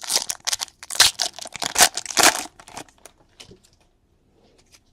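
Crinkling and tearing of trading-card packaging as cards are handled: a dense rustle for about two and a half seconds, then a few light clicks and rustles.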